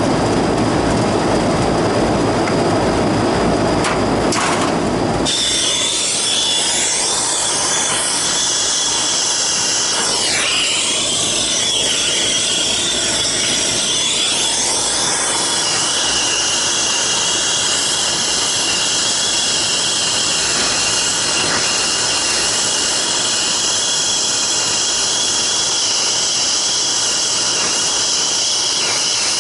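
Brazing torch hissing as a leak in the copper tubing of an air-conditioner condenser coil is brazed. For the first five seconds there is a lower rushing noise, then a sudden change to a strong high hiss with steady whistling tones that waver in pitch now and then.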